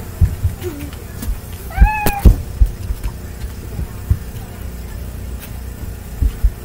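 A dog gives one short, high whine that slides up and levels off about two seconds in, among heavy thumps of paws and footsteps on the camper floor right by the microphone.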